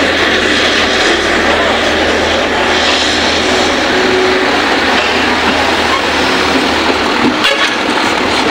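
Hitachi hydraulic excavator's diesel engine running steadily while it loads soil into a dump truck, with a short knock about seven and a half seconds in.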